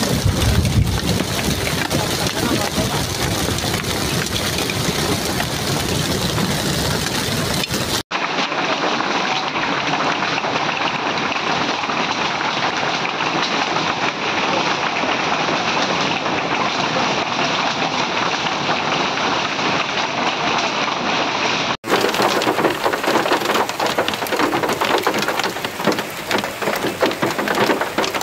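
Heavy hailstorm: hail and rain coming down hard in a dense, steady patter. Abrupt cuts about 8 and 22 seconds in switch between recordings, the middle one duller.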